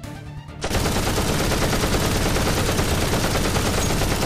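Machine-gun fire sound effect: a loud, continuous rapid-fire burst that starts abruptly under a second in and keeps going, covering the background music.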